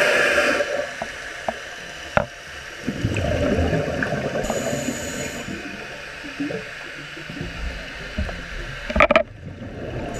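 Scuba regulator breathing heard underwater. A hiss of inhaled air fades within the first second, then bubbles gurgle on the exhale, with a few sharp clicks.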